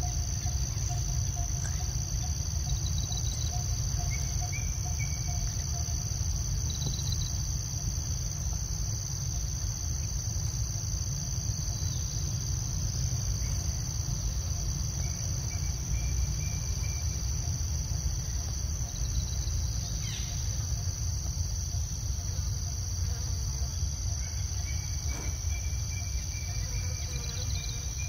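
Steady, unbroken high-pitched insect chorus of crickets or cicadas over a steady low rumble, with a few faint short chirping calls here and there.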